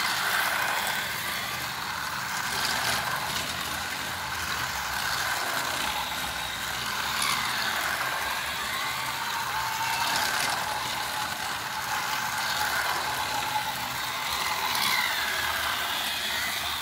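Battery-powered plastic toy trains running laps on plastic track: the small motors and gears make a steady grinding whir and the wheels rattle. The sound swells and fades a little as the red Cars-themed train circles past.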